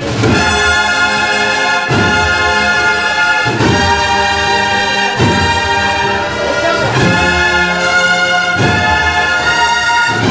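Brass band playing a slow processional march: trumpets and trombones hold full chords over a heavy drum beat that falls about every one and a half to two seconds.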